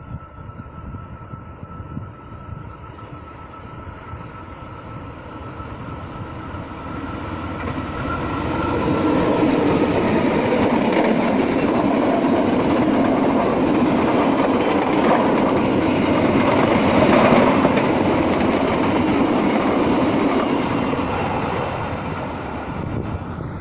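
Diesel-hauled passenger train passing close by: a rumble over the rails that swells as the train approaches, is loudest for about twelve seconds while the coaches go by, and fades near the end. A steady high tone sounds during the approach.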